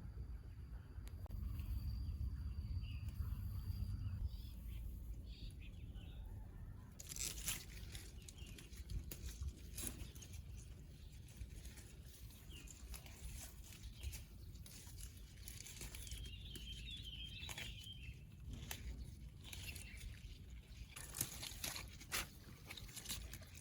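Irregular tearing, snapping and crinkling of leafy plant stems handled by hand, typical of greens such as Malabar spinach being picked. A low rumble fills the first few seconds before the snapping begins.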